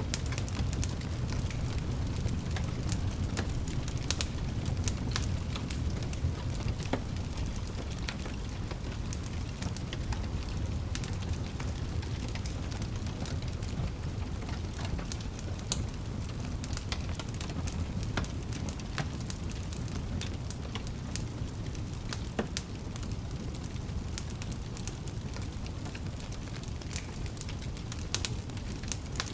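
Wood fire burning in a fireplace: a steady low rumble of flames with frequent irregular pops and crackles.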